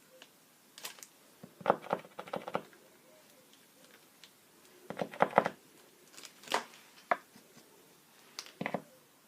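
Small objects handled on a work table: short clusters of clicks and rattles, about five of them, with quiet between.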